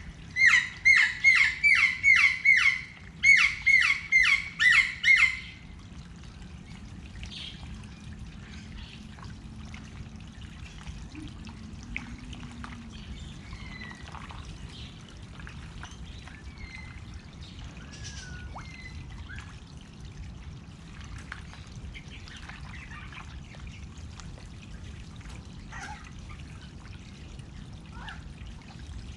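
A bird gives two quick runs of loud, sharply falling calls, about a dozen in all, in the first five seconds. After that there are only faint scattered bird calls over a steady trickle of running water.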